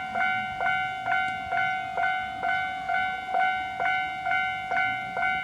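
Japanese railway level crossing's electronic warning bell dinging steadily, about two strikes a second, each strike ringing on in a chord of steady tones.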